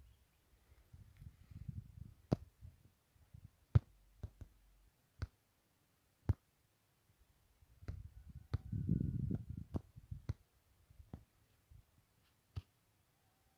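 Scattered sharp clicks of handling noise on a phone's microphone, about a dozen at irregular intervals, with two spells of low rumble from wind buffeting the microphone, the louder one about two-thirds of the way in.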